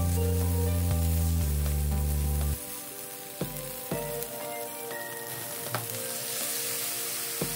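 Stir-fry filling of chicken, peanuts, chestnuts and mushrooms sizzling in a nonstick frying pan while a spatula stirs and scrapes through it, with a few short taps of the utensil on the pan from about three seconds in. Background music with low notes is loudest in the first two and a half seconds.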